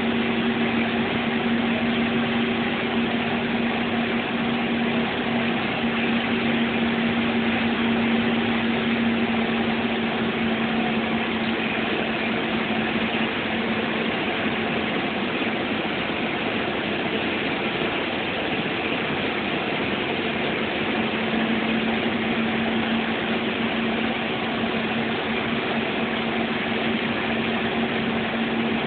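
Bus engine running steadily with road and wind noise, heard from inside the cabin while driving on the highway. The engine's hum fades for a while in the middle and comes back about two-thirds of the way through.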